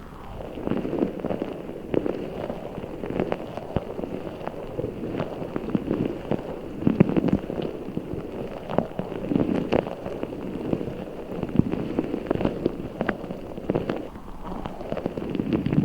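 Giant orbeez-filled squishy ball being squeezed and kneaded: continuous squelching of the gel beads with many small crackles and clicks.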